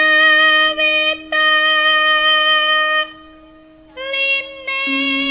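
A young sinden (Javanese female gamelan singer) singing long, held notes into a microphone, with a pause of about a second partway through. Under the voice a steady low tone carries on and steps down in pitch near the end.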